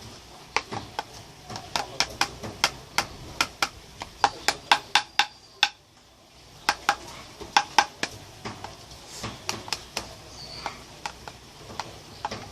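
A spoon clicking and scraping against a plastic container while stirring slime: sharp, irregular clicks, two to four a second, with a short pause about halfway through.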